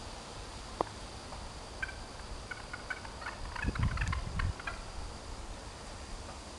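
A flock of wild turkeys calling: a quick run of short calls for a few seconds in the middle, with a brief low rumble about four seconds in.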